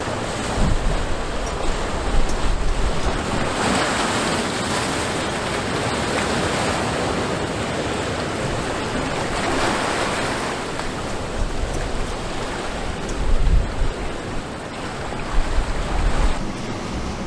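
Ocean surf washing against the rocky shore, swelling twice, with wind rumbling on the microphone.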